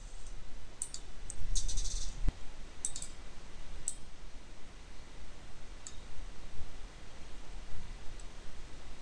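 Computer mouse clicking: a quick cluster of clicks about a second and a half in, then a few single clicks spaced out over the next few seconds.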